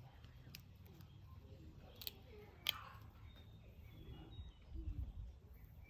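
Faint crisp snaps and clicks of a nettle stem being broken in small sections by hand and its pith stripped from the outer fibres, with a sharper crack about two and a half seconds in. A soft low rumble follows near the end.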